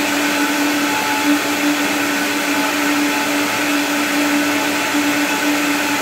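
Deep-brand high-performance commercial blender running steadily at speed, crushing a banana, sugar and milk mix into ice cream: a loud, even whir with a constant motor hum.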